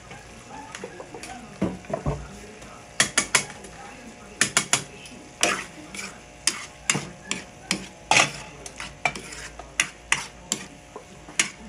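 A metal spatula scraping and clinking against the pan as saucy chicken pieces are stirred, over a low sizzle from the simmering sauce. The strokes start about three seconds in and come irregularly, a few a second.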